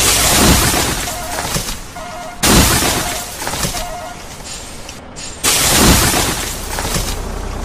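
Three loud crashing, splintering noises about two and a half to three seconds apart, each starting suddenly and dying away over a second or two: a tree-crash sound effect. A faint repeated beeping comes between them.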